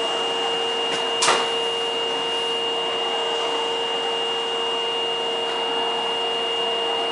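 Steady hum and hiss of a stopped Osaka Metro 22 series subway train's air-conditioning and auxiliary equipment, with a steady whine on top, standing at a terminal platform. A single sharp click comes about a second in.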